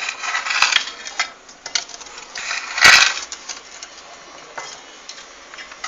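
Metal utensil scraping and clinking against a baking dish, in short rasping bursts with light clicks, and one loud scrape about three seconds in.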